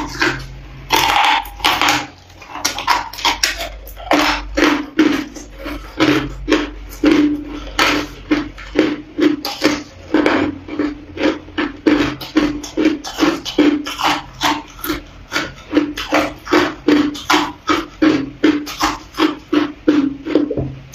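Close-up crunching of packed, green-tinted crushed ice being bitten and chewed, about two sharp crunches a second.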